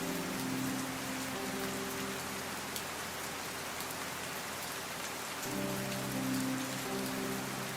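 Steady rain falling: an even hiss with occasional sharper drop ticks. Under it are soft, sustained low music notes that fade out about halfway through and come back about five and a half seconds in.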